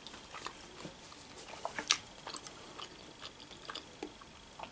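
A person chewing food with soft wet mouth clicks, with one sharp click about two seconds in.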